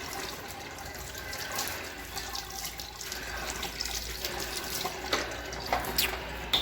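Water running and splashing, with a few short sharp splashes or clicks near the end.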